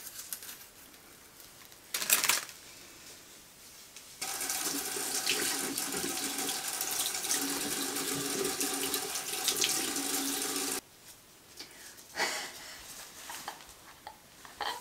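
Bathroom sink tap turned on, water running into the basin for about six and a half seconds, then turned off abruptly. A brief rustle comes about two seconds in.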